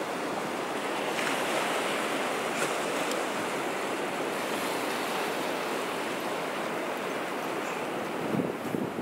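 Sea surf breaking and washing up a sandy beach in a steady rush, with a few wind buffets on the microphone near the end.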